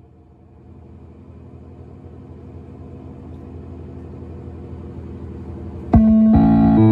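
A low rumble that slowly grows louder, then about six seconds in the old Macintosh crash chime cuts in loud through a bass-boosted speaker system: held electronic tones that step to new notes twice before the end.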